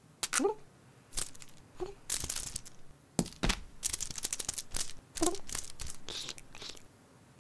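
Cartoon sound effects of sticky tape being pulled off a dispenser roll and stuck to a cat's paws: a run of short tearing, crinkling and sticky peeling noises, with a few brief cat grunts or mews mixed in.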